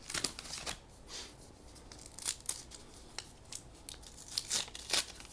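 Foil wrapper of a 1990-91 Upper Deck hockey card pack crinkling and tearing as it is handled and opened: a string of short, irregular crackles and rustles.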